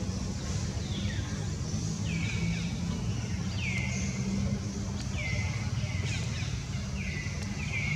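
A steady low rumble with a short call repeated about once a second, each note sliding down in pitch and then levelling off briefly.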